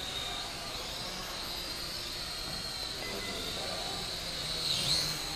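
Small toy quadcopter's motors and propellers whining in flight, the pitch wavering up and down as the throttle changes, with a brief louder swell near the end.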